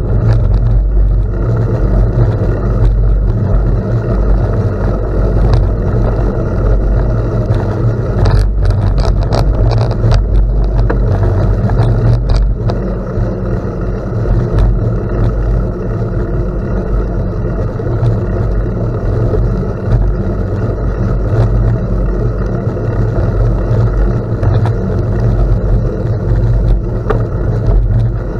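Steady low rumble of wind and rolling noise from a bicycle riding on gravel, with a few short rattles about eight to twelve seconds in.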